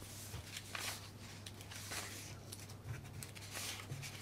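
Faint rustling and handling of papers at a conference table, a few soft scattered clicks, over a low steady hum.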